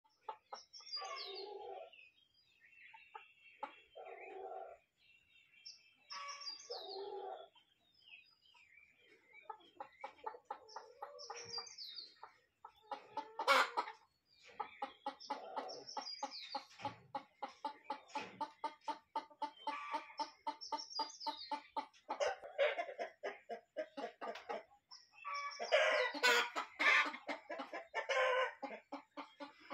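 Free-range chickens clucking and calling, with short separate calls at first, then long runs of quick, repeated clucks.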